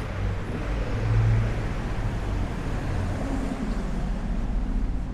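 Street traffic: a steady low rumble of motor vehicles, with a deeper engine hum swelling about a second in.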